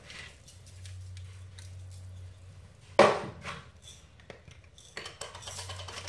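Hand-twisted salt and pepper grinders grinding over a pan of cauliflower florets: faint crunching at first, a single sharp knock about three seconds in, then rapid ratcheting clicks of the grinder from about five seconds in.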